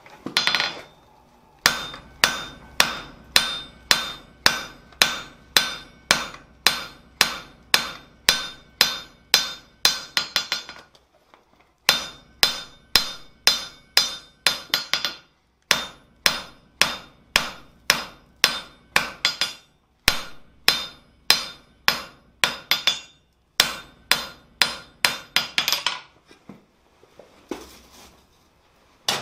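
Blacksmith's hammer forging a red-hot steel bar on an anvil: about three blows a second, each with a bright anvil ring, in runs of several seconds broken by short pauses.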